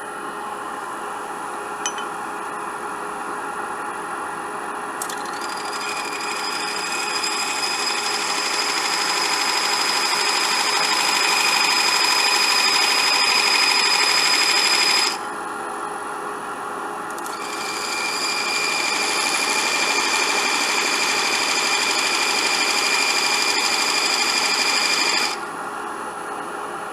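Wood lathe running while a texturing tool is held against the spinning cedar, giving a loud buzzing with a high steady whine as its wheel chatters on the wood. The buzz starts about five seconds in, stops for a couple of seconds around the middle, then runs again until shortly before the end.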